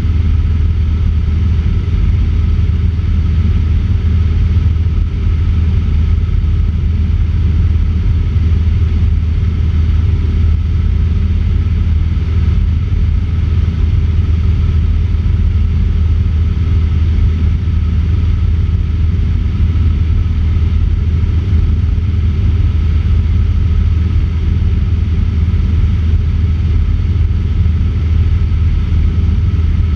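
Cessna 150's Continental O-200 four-cylinder engine and propeller in flight, a loud, steady drone that does not change.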